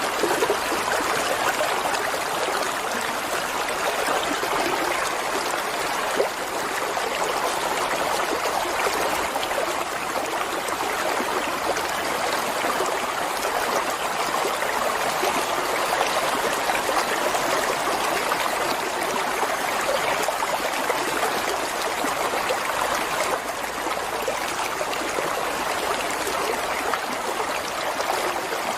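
Water running in a stream, a steady rushing and trickling.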